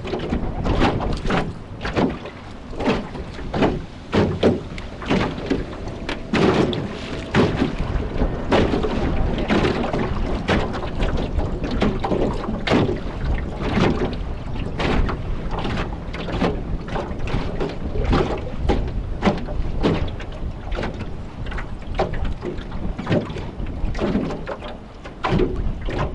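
Strong gusting wind buffeting the microphone over a steady low rumble, with rough water on the river: the gale of an approaching typhoon.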